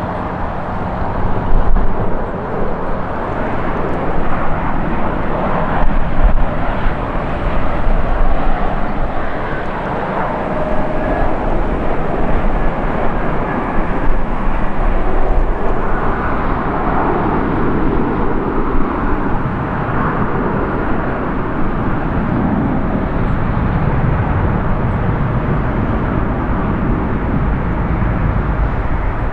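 Jet airliner engine noise: a continuous, loud rumble and rushing hiss as airliners land and roll out on the runway, swelling and easing a little at times.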